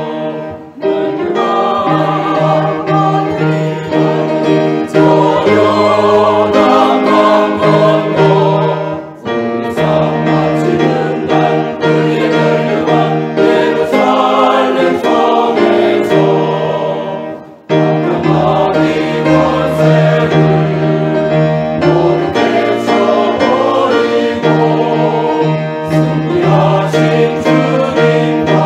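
Mixed church choir singing a hymn anthem in parts, in sustained phrases with brief breaths between them, about 1, 9 and 17 seconds in.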